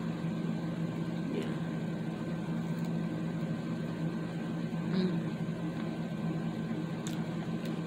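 A steady low machine hum, such as a fan or appliance motor, with a few faint soft clicks of chewing as she eats a bite of pizza.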